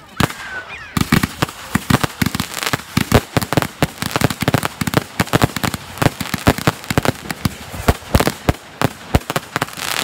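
Aerial fireworks going off: a dense, irregular run of bangs and crackles from bursting shells and crackling stars, starting about a second in.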